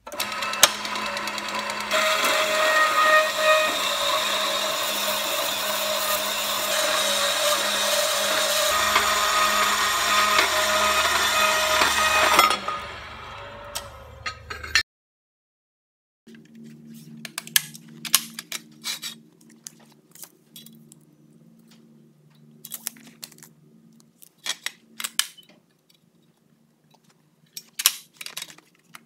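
Metal-cutting band saw cutting through steel angle: a loud, steady harsh noise with ringing tones that dies away about twelve seconds in. After a brief break comes a quieter low steady hum with scattered clicks and clanks of metal being handled and clamped in the saw's vise.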